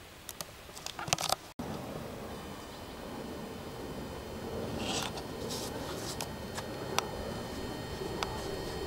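Knocks and rustles in the first second and a half, then a thin, high-pitched steady whine with several overtones from a Syrphus hoverfly singing while it sits perched rather than flying. A few faint clicks sound over it.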